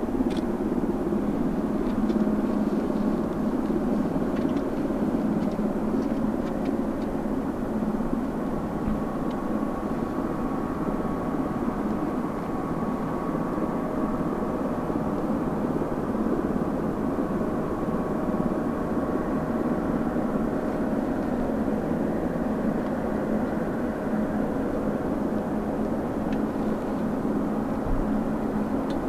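Jet engines of a Boeing 777-300ER (GE90s) running steadily: a dense, even rumble with a faint steady whine on top.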